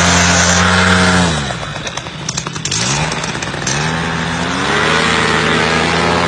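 Nitro 200 two-stroke paramotor engine and propeller on a trike running at a steady high throttle, then throttled back about a second in, its pitch falling away; around three seconds in it is opened up again, the pitch climbing, and it holds a steady run near the end.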